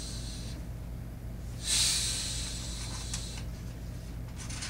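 A person hissing through the teeth, a 'tsss' imitating food sizzling in a pan: the tail of one hiss just at the start, then a second that lasts about a second and a half. Near the end, a book page is turned with light paper rustles and clicks.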